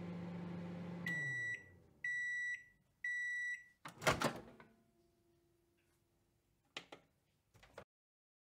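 Microwave oven running with a low hum that winds down as the timer hits zero, then three high beeps about a second apart signalling the cooking is done. A loud clunk follows as the door is popped open, and two short clicks come near the end.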